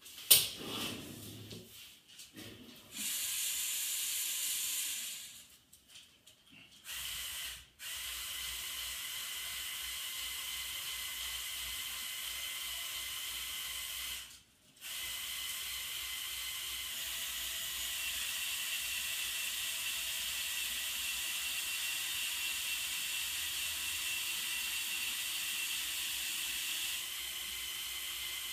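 Electric motors and gear train of a LEGO Technic mobile crane model running steadily as the boom is lowered. The run opens with a sharp click, stops for a moment about halfway through, then starts again, and its tone shifts slightly near the end.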